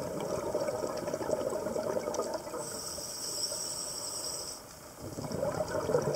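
Scuba regulator breathing heard underwater: crackling, gurgling exhaust bubbles, then a hiss of an inhaled breath from about two and a half seconds in to nearly five, then bubbling again near the end.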